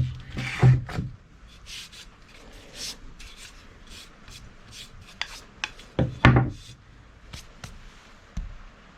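Short, irregular rubbing strokes by hand, about two a second, with a couple of louder scrapes about six seconds in, typical of working the axe during its restoration.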